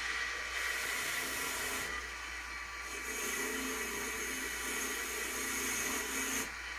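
A small electric power tool whirs steadily while it is used to clean rust off the gun's steel parts. A high whine joins about halfway through and drops out near the end.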